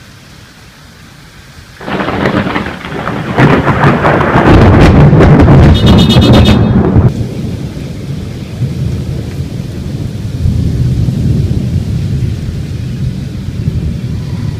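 A close thunderclap over steady rain. About two seconds in, a sudden crackling crack builds to a very loud peak, then breaks into a long low rumble that slowly fades.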